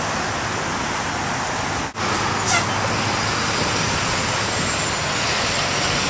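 Steady street traffic noise as a yellow school bus drives past close by, with a brief drop-out about two seconds in.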